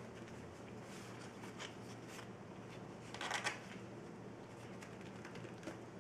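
Hands pressing and sliding a vinyl liner into place in a wooden case: soft rustling and rubbing, with a louder scuff about three seconds in.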